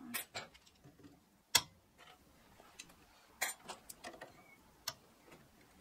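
Scattered sharp clicks and knocks of steel parts and tools being handled, with one louder knock about one and a half seconds in and a quick cluster of clicks a little past the middle.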